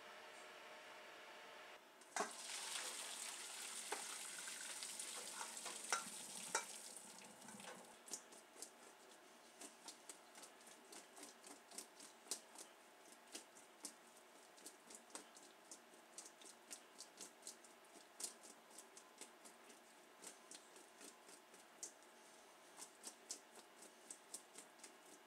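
Boiled potatoes and their hot water poured into a stainless steel colander, the water splashing and draining for about five seconds. Then the potato chunks are tossed in the colander, tapping against the steel in many quick, irregular knocks.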